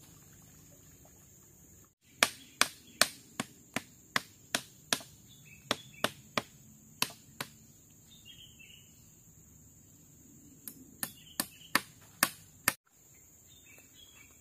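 Repeated sharp blows of a hand tool striking, about two to three a second, in two runs separated by a pause of about three seconds. A steady high insect drone runs underneath.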